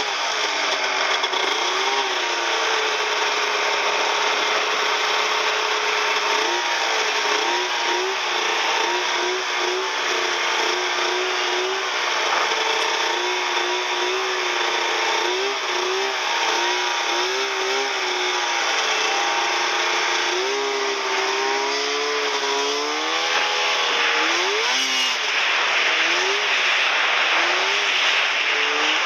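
Snowmobile engine running as it is ridden over snow, its pitch rising and falling again and again as the throttle is opened and eased, over a steady rushing noise.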